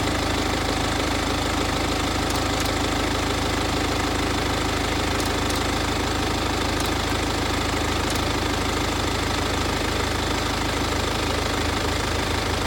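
BMW 328d's four-cylinder diesel engine idling steadily, with a few faint clicks over it.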